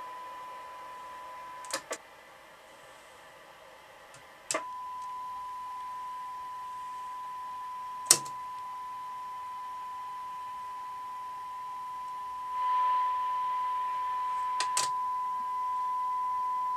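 A steady single-pitch test tone from a signal generator, received and played through a Moonraker Minor II CB radio's speaker. It cuts out briefly after a pair of clicks about two seconds in and returns with a click near four and a half seconds. Further sharp clicks from the radio's front-panel controls come about eight and fifteen seconds in, and a brief swell of hiss comes near thirteen seconds.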